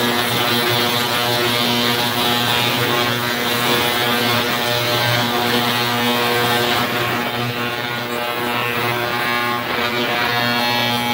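CO-Z digital ultrasonic cleaner running: a loud, steady buzz with a hiss over it, as the heated tank cleans .22 suppressor baffles sealed in a bag of CLR.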